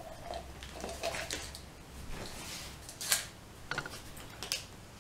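A few short, sharp clicks and rustles of small objects being handled, the clearest three coming in the second half.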